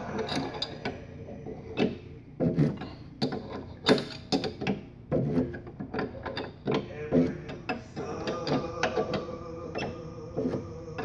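Irregular metallic clicking and knocking of hand tools working on a car, with ratchet-like clicks.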